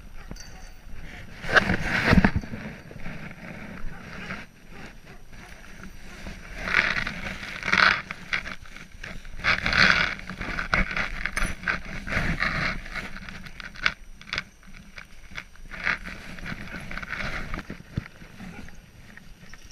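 Rustling and scraping close to the microphone in irregular bursts, from gloved hands and jacket sleeves rubbing a husky's fur, with a few light clicks.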